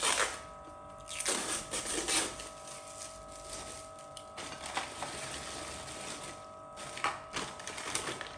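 Plastic food containers and their clip-on lids being handled and plastic packaging crinkling, in several short rustling bursts, over a faint steady hum.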